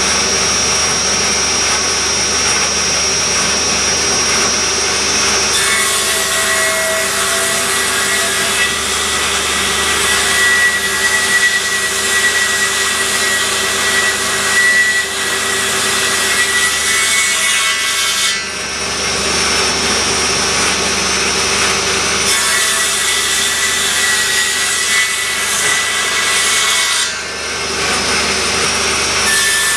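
Electric woodworking power tool running with a steady motor whine, working wood. A harsher hiss comes in from about five to eighteen seconds and again from about twenty-two to twenty-seven seconds, when the tool is biting into the wood.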